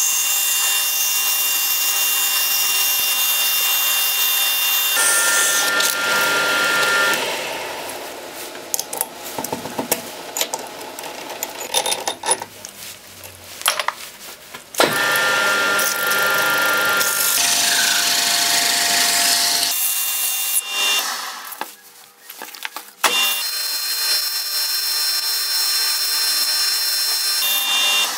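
Metal lathe running with a steady whine while abrasive cloth is held against the spinning steel shaft, a hiss of sanding that polishes rust off the pipe vise part. The lathe runs in three stretches, stopping twice, with clicks and knocks of handling in the quieter gaps.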